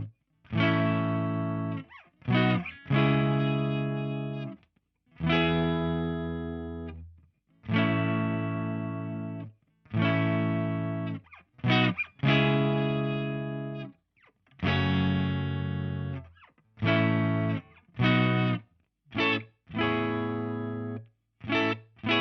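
2008 PRS Hollowbody I electric guitar played through a Diezel VH4 head and Marshall 4x12 cabinet, strumming distorted chords that ring and fade, each stopped sharply into silence. The chords come as shorter, quicker stabs near the end.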